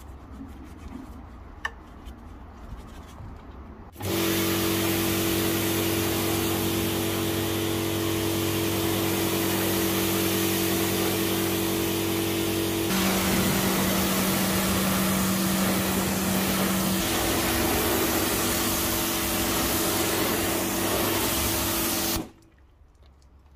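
AVA Evolution P70 electric pressure washer running and spraying: a steady motor hum under the loud hiss of the water jet. It starts suddenly about four seconds in and cuts off suddenly near the end.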